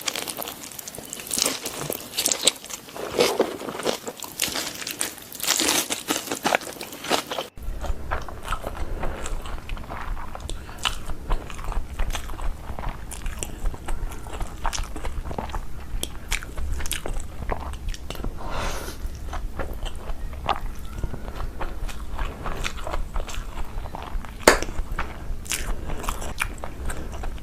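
A person eating close to the microphone: chewing and biting, with crunches and wet mouth clicks. A steady low hum comes in about seven seconds in.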